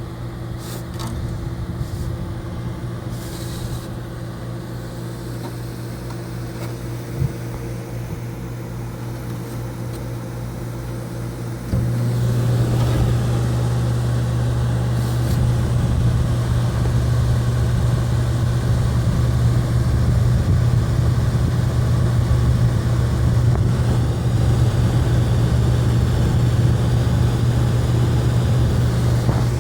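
Fedders 8,000 BTU Weather Wheel window air conditioner from the mid-1960s running with a steady mains-frequency hum. About twelve seconds in, it steps up to a louder, fuller running sound with more rushing air.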